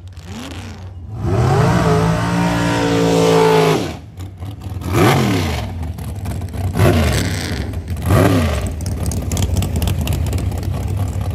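Drag race car engine revving: a short blip, then held at high revs for about two and a half seconds before cutting off, followed by three sharp throttle blips rising and falling in pitch over a steady idle.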